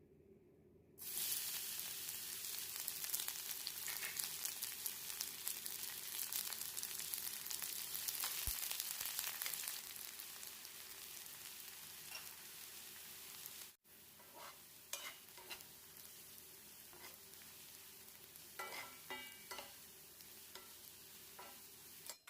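Sliced garlic sizzling as it fries in hot oil in a pan, with a spatula stirring and scraping now and then. The sizzle starts about a second in and is loud at first, then settles to a softer fry for the second half.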